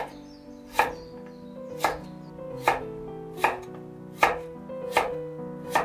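Global stainless-steel kitchen knife slicing through daikon radish and striking a wooden cutting board, about eight even cuts at just over one a second. Soft background music runs under the cuts.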